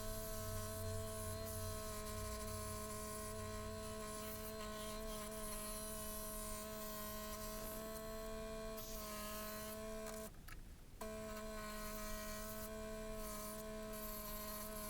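Scroll saw running steadily while cutting an inside slot in pallet wood, a constant buzzing hum that breaks off for under a second about ten seconds in.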